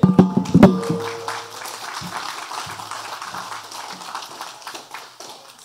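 Congregation applauding, loudest at the start and dying away steadily.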